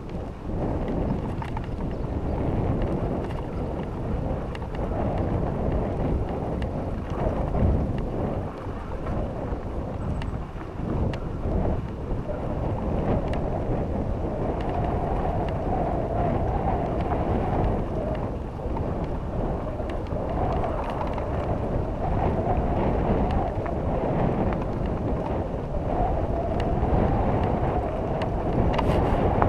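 Wind buffeting the microphone of an action camera on a moving mountain bike. Under it are the tyres rolling over dirt and loose stones and the bike rattling over the bumps.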